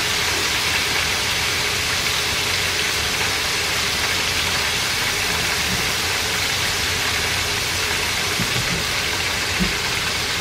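Shrimp deep-frying in very hot oil: a steady, dense sizzle of rapidly bubbling oil. The oil is hot enough that the batch is cooking fast.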